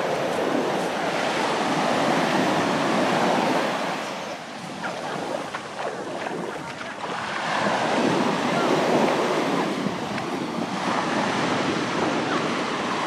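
Sea waves breaking and washing up the beach, the surf swelling twice, with wind on the microphone.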